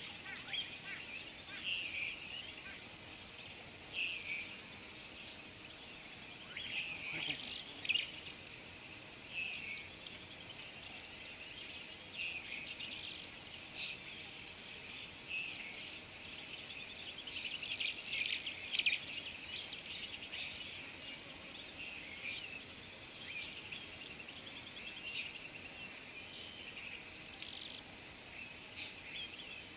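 Steady high-pitched insect chorus, like crickets, with many short bird chirps and calls scattered throughout.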